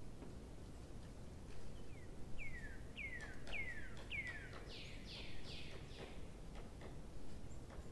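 A bird calling: a run of about eight short notes, each sliding down in pitch, about two a second, the last few rougher and less clear.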